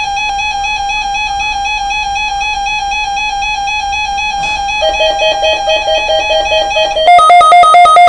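Electronic alert tones from a weather alert radio receiving the NOAA Weather Radio Required Weekly Test. A steady tone sounds first, and a second, lower pulsing tone joins about five seconds in. About seven seconds in, a louder, rapid two-tone beeping alarm starts from the Midland radio as it activates.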